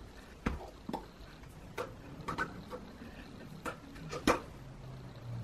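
A series of irregularly spaced sharp clicks and taps, about a dozen, the loudest a little after four seconds in, with a faint low hum coming in near the end.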